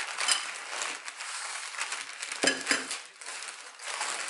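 Crumpled newspaper crinkling and rustling as it is unwrapped, with a brief metallic clink about halfway through as the steel planer blade inside shifts against the bench.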